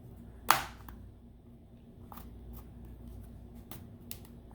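Plastic retaining tabs of a Samsung tablet's back cover snapping loose as a pry tool works along the seam: one sharp snap about half a second in, then several faint clicks.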